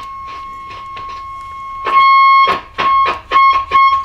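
Ampeg R-212R Reverberocket tube amp's speaker playing a steady test tone with scratchy crackles as the controls are turned; about halfway the tone jumps much louder, then cuts out and back in several times. The crackle comes from dirty potentiometers, which are expected to clean up.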